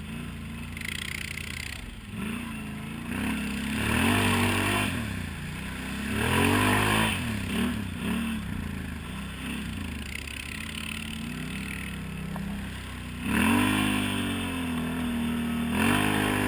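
ATV engine running under throttle, revving up and falling back in several bursts.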